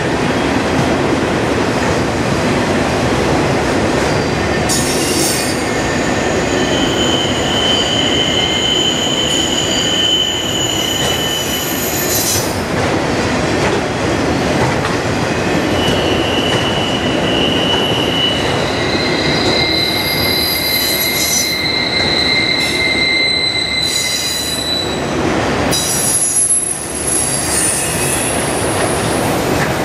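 Freight train cars, autoracks among them, rolling steadily past with a continuous rumble of steel wheels on rail. Several high-pitched wheel squeals of different pitches rise out of it, each held for a few seconds.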